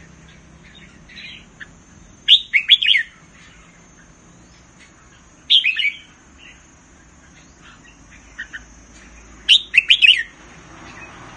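Red-whiskered bulbul singing: three short, loud phrases of quick whistled notes about three to four seconds apart, with a few softer notes between them. These are the song phrases counted in Thai bulbul singing contests.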